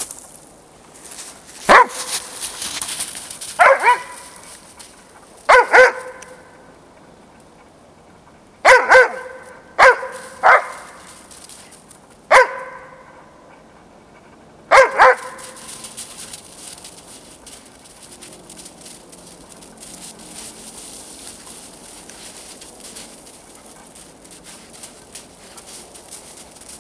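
A young Dobermann barking: about a dozen short, sharp barks, some single and some in quick pairs, over roughly the first fifteen seconds, then the barking stops.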